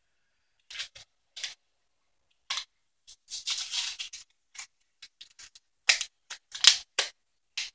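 Plastic and cardboard packaging of a lip gloss being pried and torn open by hand: a run of irregular crackles and snaps, with a longer tearing crinkle about three and a half seconds in and the loudest sharp snaps around six to seven seconds.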